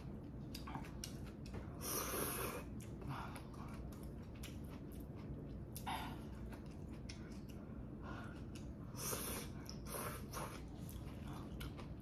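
A person eating ramen noodles: wet slurps of noodles about two seconds in, around six seconds and twice more near nine and ten seconds, with chewing and small mouth clicks between.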